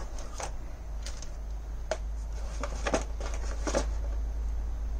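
Small handling noises as a drone's accessories are lifted from their box: a few light clicks and rustles of a small flight battery, its charger lead and the packaging, spaced out over a steady low hum.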